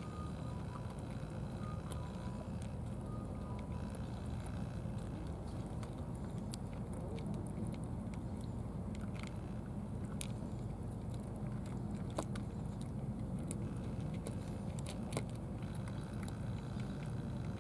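Cats chewing and lapping food from plastic trays, heard as scattered short wet clicks and smacks, over a steady low rumble.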